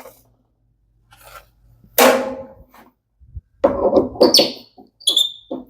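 Hand tools clanking and clinking against the metal washing machine drum and lifter fittings while bolts are tightened: one sharp ringing clank about two seconds in, then a run of clinks and short high squeaks near the end.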